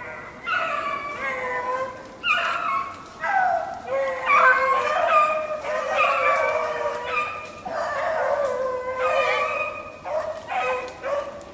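A pack of beagles baying in overlapping, drawn-out calls with no break, the cry of hounds running a rabbit's track.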